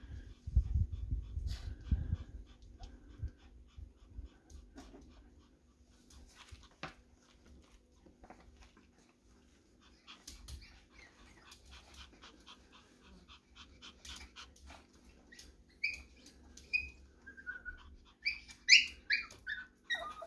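Pomeranian whimpering: a string of short, high-pitched squeaks near the end. Low rubbing and bumping sounds come in the first few seconds, with faint scattered clicks between.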